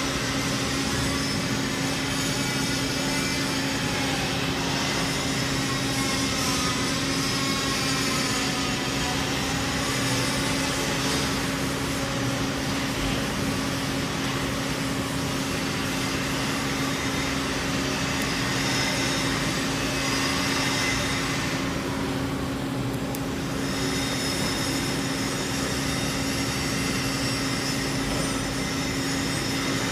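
TIG welding arc burning continuously on schedule 10 stainless steel pipe: a steady hiss over a constant hum. The hiss thins briefly about two-thirds of the way through, then carries on.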